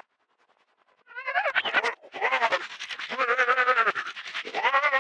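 Silence, then about a second in a heavily effects-processed cartoon soundtrack starts: a dense, warbling wash of wavering pitches with a fast, even stutter, warped beyond recognisable words.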